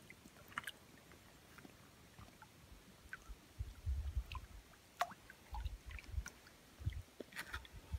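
Lake water lapping and gurgling against shoreline rocks, with scattered small drips and clicks. A few low bumps come from about three and a half seconds in.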